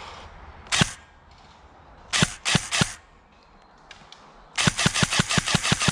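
G&G PCC9 airsoft electric gun firing: a single shot, then three shots about a third of a second apart, then a rapid burst of about ten shots near the end.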